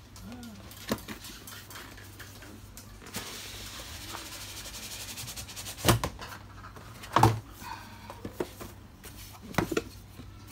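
Cardboard graphics-card boxes being handled and moved on a tiled floor: a steady sliding scrape for a few seconds, then several sharp knocks and taps as the boxes are picked up, set down and opened.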